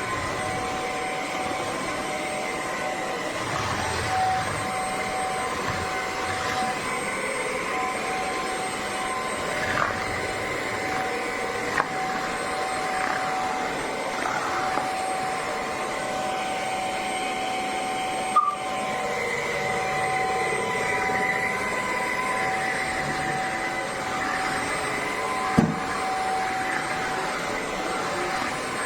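BISSELL CrossWave OmniForce cordless wet-dry floor cleaner running steadily with a constant whine, with a few short knocks about a third of the way in, around the middle and near the end.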